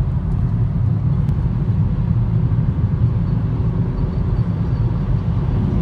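Steady road and wind noise inside a 2020 Kia Rio's cabin at about 130–140 km/h, mostly a low rumble. Above it is a faint whistle coming from the left door mirror.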